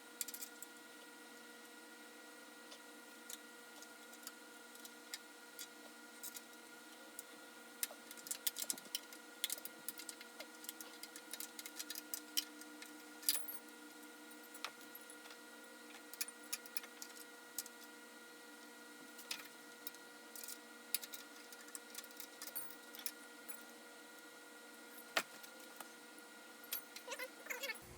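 Scattered sharp metallic clicks and clinks of a 13 mm wrench working the engine-mount bolts loose, coming in irregular clusters, over a steady faint hum.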